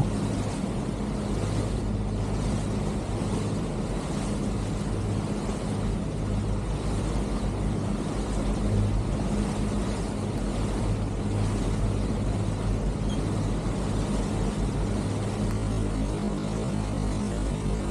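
Pilot boat's engine running steadily: a constant low hum under an even rushing noise.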